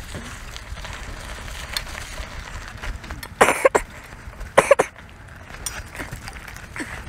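BMX bike rolling over rough ground and gravel, a steady rumble, broken by two loud short bursts about a second apart around the middle.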